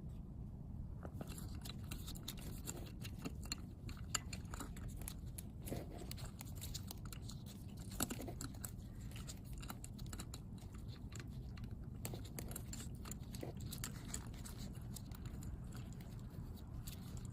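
Small, irregular clicks and crackles of hands handling a new oil filter and smearing fresh oil onto it, over a low, steady background rumble.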